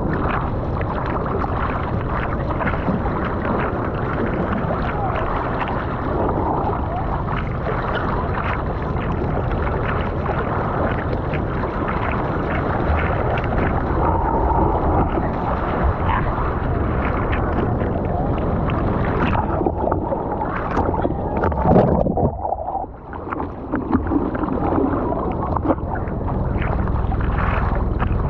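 Sea water splashing and sloshing close around a surfboard as a surfer paddles, arms stroking through the water in a steady run of splashes. One louder splash comes about three-quarters of the way in, after which the sound briefly drops away before the paddling resumes.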